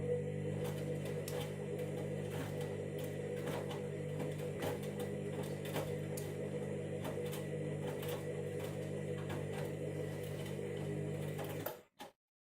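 Candy washing machine's drum motor humming steadily, with irregular clicks and knocks as the drum turns during its KG-detector load sensing. It stops suddenly near the end.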